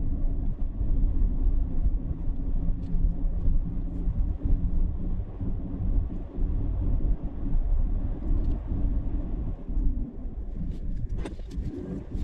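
Steady low rumble of a vehicle driving, engine and road noise, with a few light clicks near the end.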